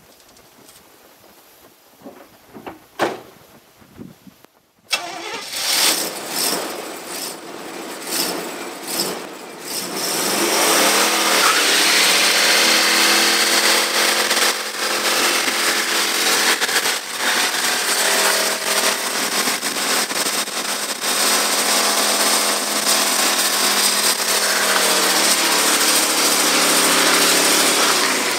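1985 Oldsmobile Cutlass 442 doing a one-wheel burnout. The engine comes in loud about five seconds in and revs unevenly, then is held at high revs for close to twenty seconds while a rear tyre spins and squeals. It stops near the end.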